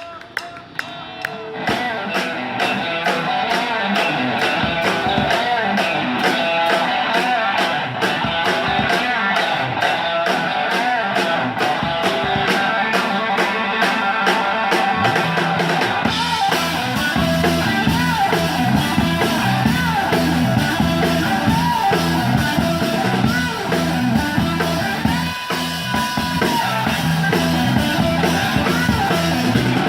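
Rock and roll played live on guitar and drum kit with a steady beat, starting about a second and a half in; a heavier low end joins about halfway through.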